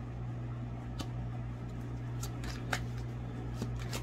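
A deck of tarot cards being shuffled: one sharp card click about a second in, then quick flicking of cards starting about halfway through, over a steady low hum.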